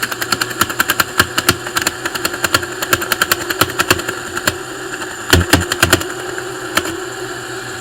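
Lego wood chipper running, its single electric motor whirring steadily while the three-bladed impeller chops a stick into chips: a rapid stream of sharp cracks and snaps for the first four seconds or so, a few heavier knocks a little after five seconds, then only occasional clicks over the motor.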